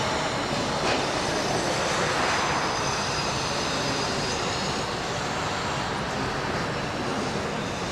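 Steady noisy ambience of an indoor ice rink hall, rising a little about two seconds in.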